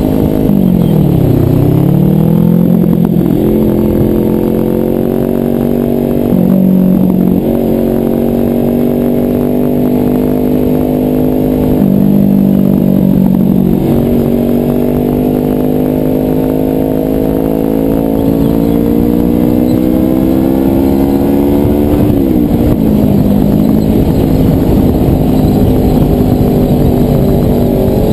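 Kawasaki ER-6 parallel-twin motorcycle engine under way. Its note climbs slowly for several seconds at a time and drops sharply four times: once just after the start, then about six, twelve and twenty-two seconds in, as the rider shifts gear or rolls off the throttle.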